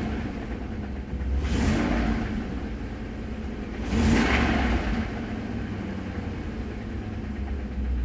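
Ford 5.4L Triton V8 idling with a knock from the engine. The knock is one the owner fears is rod knock, with oil pressure dropping once the engine warms. Two brief louder swells of noise come about a second and a half and four seconds in.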